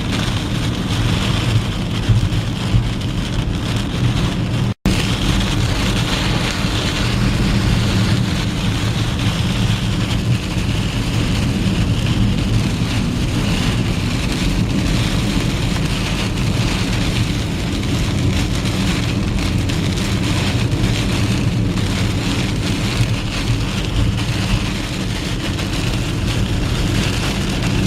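Steady rain on a moving truck, with engine and road rumble underneath. The sound drops out for an instant about five seconds in.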